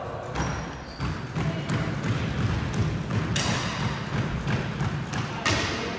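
Irregular sharp smacks and thuds of squash balls striking rackets and walls, echoing in the hall, over a steady low background rumble.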